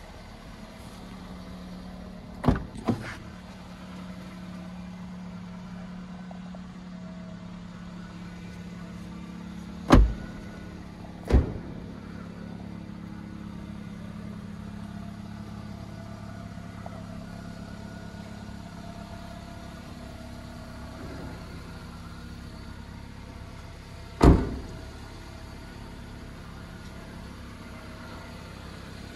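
Gasoline Toyota Corolla engine idling steadily with a low hum. Sharp thumps break in: two close together a couple of seconds in, two more around ten and eleven seconds in, and a loud one near the end.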